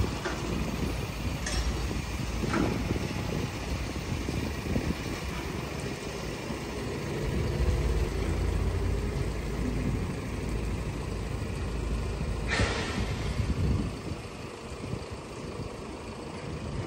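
Low, steady rumble of an idling truck engine. About twelve seconds in comes one short hiss of released air, lasting about a second.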